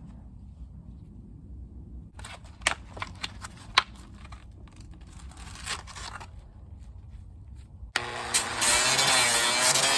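A few light clicks and knocks over a low hum, then about eight seconds in an electric power sander switches on and runs loudly, its motor whine over the rasp of sanding 3D-printed plastic.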